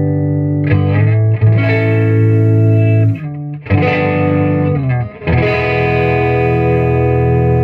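Distorted electric guitar through an amp with its bright and normal channels used together, playing sustained chords that ring out. A new chord is struck four times, with a brief drop in the sound a little before the middle.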